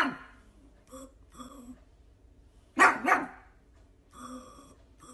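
Pug barking: two loud two-part barks about three seconds apart, each sounding like 'poo poo', with quieter short sounds between them.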